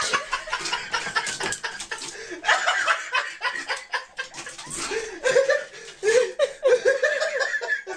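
A person laughing in repeated giggling bursts, coming thickest in the second half, over rustling and light knocks from things being moved about.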